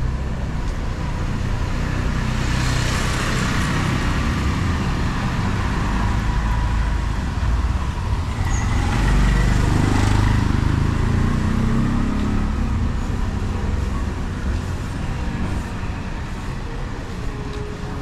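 Road traffic with motor vehicles passing close by: one swells up about three seconds in, and a louder one passes around nine to ten seconds in, over a steady background of traffic.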